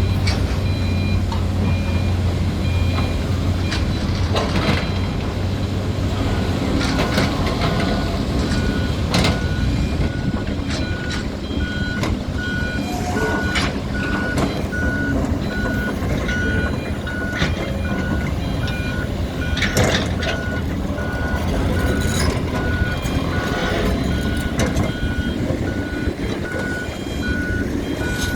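Excavator's diesel engine running steadily, with a warning alarm beeping about twice a second through most of it. Irregular sharp knocks and cracks come from concrete being broken.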